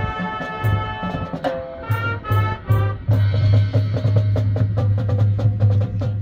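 High school marching band playing, heard from the stands: held brass and woodwind chords over a drum pulse. From about three seconds in, this changes to a steady low sustained note under quick, even percussion ticks.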